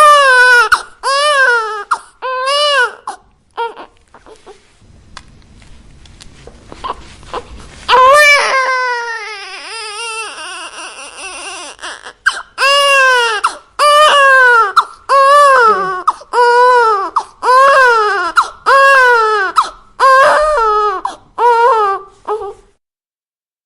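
Newborn baby crying in short, repeated wails, each rising then falling in pitch. A quieter stretch comes about four seconds in, then one long drawn-out cry about eight seconds in, then steady wails again, roughly one a second, until the crying stops shortly before the end.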